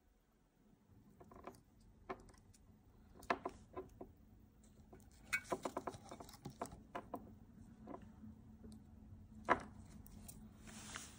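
Handling noises from electrical wiring and cables being moved on a desk: scattered light clicks and taps, a quick run of clicks about halfway through, a sharper click near the end, then a brief rustle.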